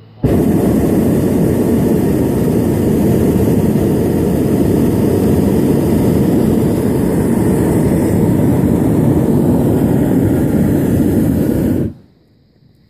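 A hot air balloon's propane burner fires in one long, loud blast of about twelve seconds, heating the air in the envelope. The blast starts and cuts off abruptly.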